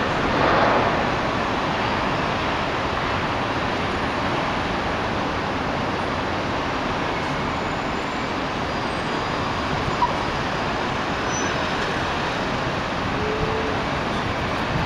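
Road traffic at a busy city junction, with buses, lorries, vans and taxis, heard from high above as a steady wash of noise. A short click about ten seconds in.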